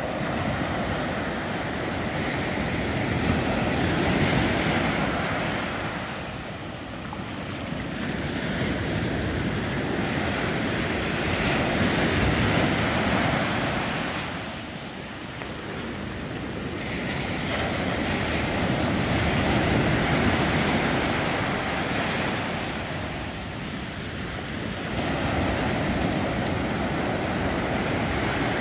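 Ocean surf breaking and washing up a sandy beach, a steady rush of water that swells and ebbs with each wave, about every seven to eight seconds.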